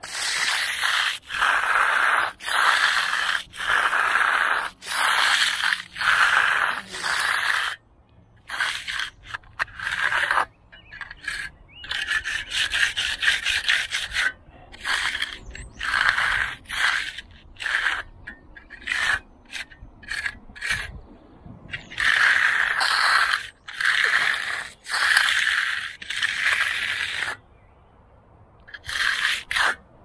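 Steel hand trowel scraping and rubbing across fresh concrete that is still wet on top, in repeated sweeping strokes of about a second each, with a brief lull near the end.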